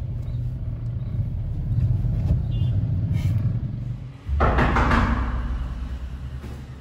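Low, steady rumble of a moving vehicle's road and engine noise. About four seconds in, the sound changes abruptly with a short, loud rush of noise, and a lower steady hum continues after it.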